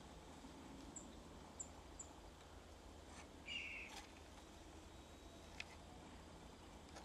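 Near silence: faint outdoor ambience with three tiny, high bird chirps in the first two seconds, a short raspy sound about three and a half seconds in, and a couple of faint clicks.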